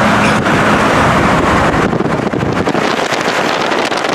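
Road and wind noise of a vehicle travelling at highway speed, a steady rush. About two seconds in it changes to ragged wind buffeting on the microphone.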